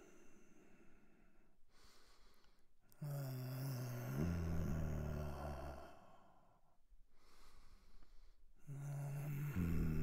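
A man breathing heavily and laboriously, as if ill. Slow breaths carry a throaty, pitched sound: one loud breath about three seconds in and another near the end, with fainter airy breathing between.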